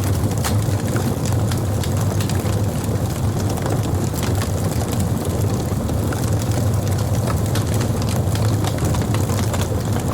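Wood campfire burning: a steady low rumble of flame with scattered sharp crackles and pops.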